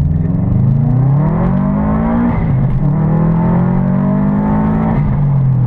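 Car engine accelerating hard: the revs climb, drop sharply at a gear change about two and a half seconds in, climb again, then fall back near the end.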